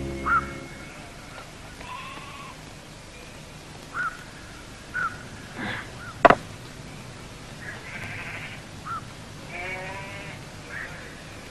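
Goats bleating now and then, with short high chirps in between. A single sharp clack of stone on stone comes about six seconds in.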